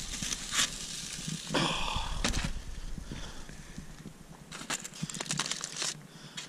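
Metal tongs clinking against a camping smoker's steel grate, with a longer scrape about a second and a half in and some crinkling of aluminium foil as a foil-wrapped tri-tip is lifted out and set down on the smoker's top.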